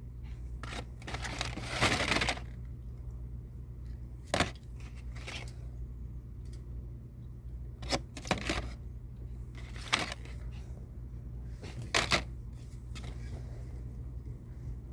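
Scattered short rustles and knocks of handling noise over a steady low hum, the longest rustle about a second in and sharper knocks at intervals after it.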